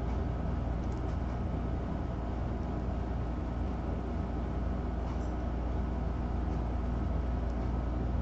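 A steady low mechanical hum with several steady tones that holds unchanged, and a few faint soft rustles now and then.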